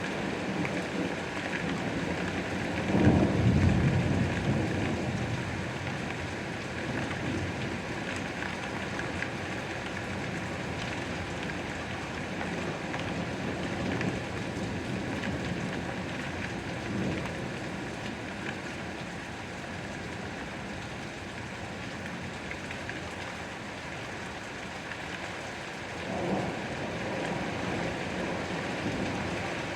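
Steady rain falling, with a low roll of thunder about three seconds in and a fainter rumble near the end.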